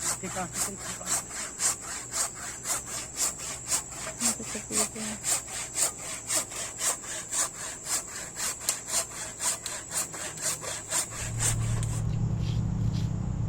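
Hand saw cutting through a branch of a Madre de Cacao tree, in steady back-and-forth strokes at about three a second. The sawing stops about eleven seconds in, and a steady low hum follows.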